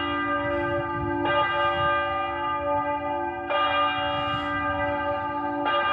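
Church bell chiming steadily, struck about once every two seconds, three strokes, each ringing on until the next.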